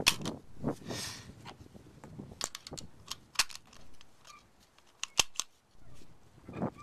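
Metallic clicks and snaps as .223 rifle cartridges are pressed one by one into a stiff rifle magazine that is hard to load. There are a few louder sharp snaps, the strongest about five seconds in and again near the end.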